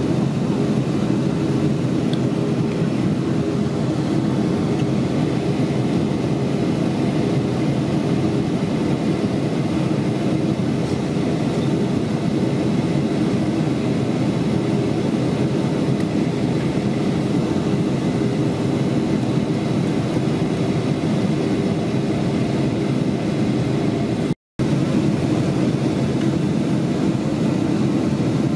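Steady cabin drone of a Boeing 757 in flight, heard from a seat over the wing: the Rolls-Royce RB211 turbofans and rushing airflow make a low, even hum with a few steady tones in it. The sound breaks off completely for an instant about 24 seconds in.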